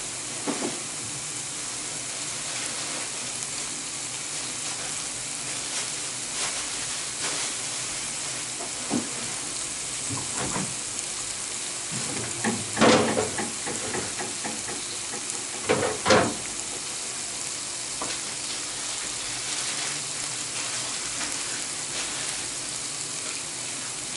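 Sucuk and butter sizzling steadily in a frying pan as the food is stirred, with a few sharp knocks of a utensil against the pan about halfway through.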